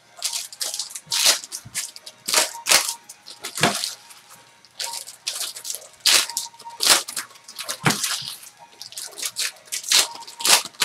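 Basketball card-pack wrappers being torn open and the trading cards handled, an irregular run of crinkling, tearing and snapping crackles.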